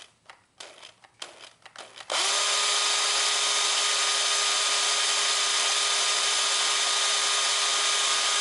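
Handheld electric drill starting up about two seconds in after a few clicks and knocks of handling. It runs at a steady, unchanging speed, drilling into a small piece of cast aluminium alloy held in a vise.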